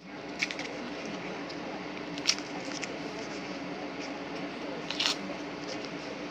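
Steady mechanical hum of kitchen background noise, broken by three sharp clicks or taps, about half a second, two seconds and five seconds in.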